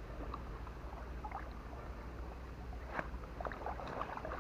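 Water sloshing and splashing in short bursts as a fishing net is dragged through it, the splashes busier in the second half, over a low steady rumble.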